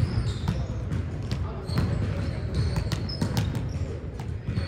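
A steady run of sharp thuds and knocks, irregular at about two or three a second, with short high squeaks, over a low rumble of voices.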